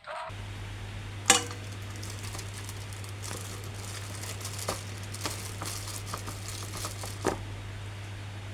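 Plastic toy packaging being handled and opened: scattered crinkles and sharp clicks, the loudest about a second in, over a steady low hum.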